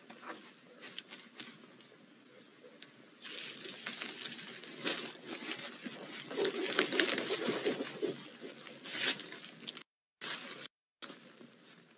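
Crackling and rustling as a barn owl shifts and scratches in the wood shavings of its nest box, with scattered sharp clicks, busiest in the middle of the stretch. The audio cuts out twice briefly near the end.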